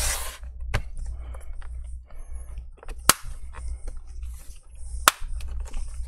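Sharp knocks and clicks of a laptop being handled on a table as it is turned over, set down and its lid opened. Three knocks stand out, about one, three and five seconds in, with lighter ticks between them over a low steady hum.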